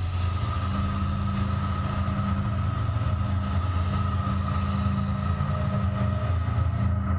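Steady low ambient drone with a thin high tone on top: the sound-design soundtrack of a stage-show teaser.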